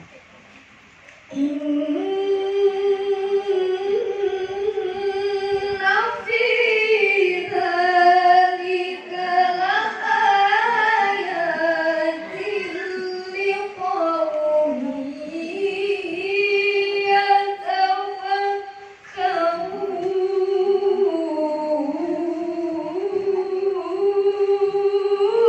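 A child's high voice chanting Quranic verses in melodic recitation, holding long ornamented notes that waver up and down. The voice comes in about a second in and pauses briefly for breath about three quarters of the way through.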